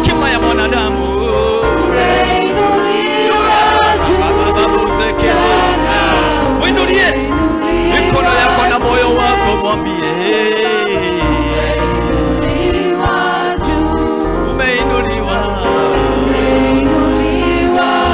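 Live gospel worship music: voices singing together over a band, with sustained bass notes underneath.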